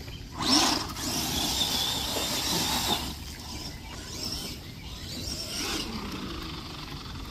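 ARRMA Gorgon RC monster truck's brushed electric motor whining as it is driven. The whine rises sharply about half a second in, is followed by a couple of seconds of steady rushing noise, and then rises and falls again later.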